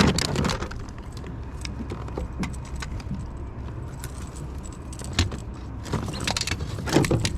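Irregular metallic rattling and clicking as a just-landed pike is handled with fish grips and the lure's hooks, over a steady low rumble. The clatter is thickest at the start and again about five to seven seconds in.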